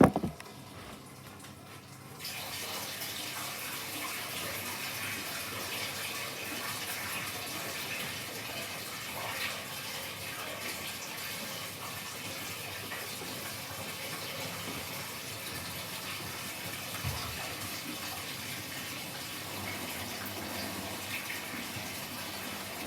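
Washing machine taking in water: a sharp click, then about two seconds later a steady rush of water starts suddenly and keeps running.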